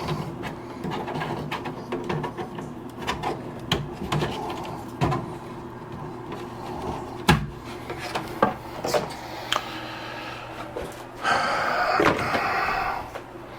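Scattered clicks and knocks of plastic parts being handled and worked loose on the 3D printer's filament system, over a steady low hum. About eleven seconds in comes a longer scraping noise lasting a couple of seconds.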